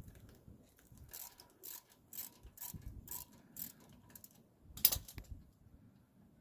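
3/8-inch-drive ratchet with a 13 mm socket clicking in a regular series, about two strokes a second, as a rear brake caliper bolt is backed out; one louder metallic clack about five seconds in.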